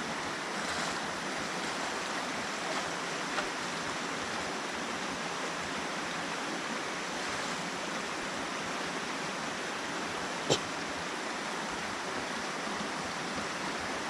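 River water running in a steady rush, with a single sharp knock about three-quarters of the way through.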